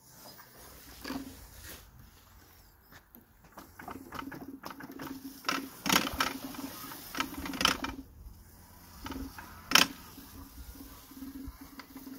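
Electric wheelchair drive motors (two 2 HP motors) whining in on-and-off stretches as the converted robot drives and turns, with irregular sharp clicks and knocks throughout, the loudest nearly ten seconds in.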